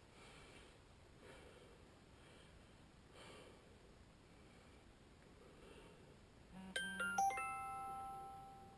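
A phone notification: a few quick, bright electronic chime notes, the last one ringing on and fading, over two short low buzzes of the phone's vibration motor. It comes about six and a half seconds in; before it there is only faint room noise.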